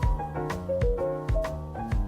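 Background music: a gentle lo-fi instrumental with keyboard notes over a steady beat of about two hits a second.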